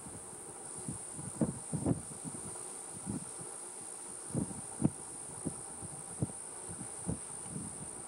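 Steady high-pitched insect chorus, with irregular short low thumps scattered through it, the loudest about five seconds in.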